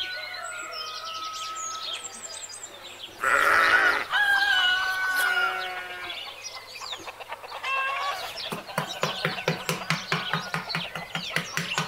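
Farmyard animal ambience: birds chirping throughout, a loud livestock call about three seconds in, and from about eight and a half seconds a fast, even run of animal calls or clucks at about five a second.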